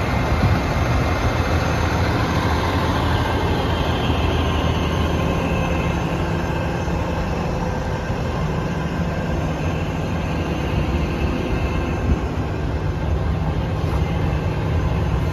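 Peterbilt tow truck's diesel engine idling steadily, a low even hum.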